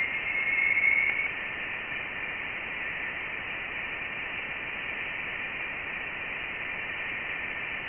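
Voyager 1 plasma-wave recording converted to audio: plasma vibrations from space heard as a steady, static-like hiss in a narrow high band, with a brief whistle-like tone in the first second.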